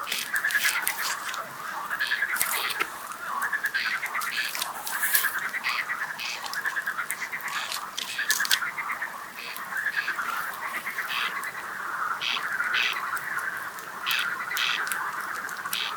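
Frogs croaking in a chorus of repeated pulsed trills, each about a second long, over the frequent sharp pops and crackles of a wood campfire.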